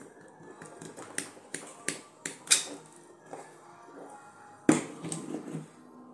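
Sharp metallic clicks and knocks of drill motor parts being handled as the armature is worked free of the field-coil housing: a quick run of five clicks, then one heavier knock about three-quarters of the way through, with a short rattle after it.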